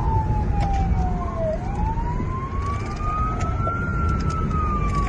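Police car siren wailing in a slow sweep, falling, then rising for a couple of seconds and falling again. It is heard from inside a moving car over heavy engine and road rumble.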